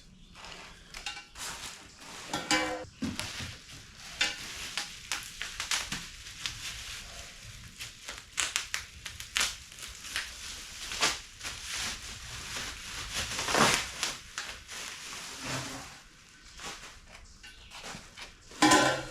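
Crinkling and rustling of packing material with scattered knocks and clanks while a boxed exhaust kit and its pipe lengths are handled, with a louder ringing knock near the end.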